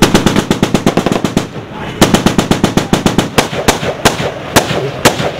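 Automatic gunfire at close range in a firefight: a rapid burst of about ten shots a second lasting a second and a half, a second shorter burst about two seconds in, then separate shots roughly every half second.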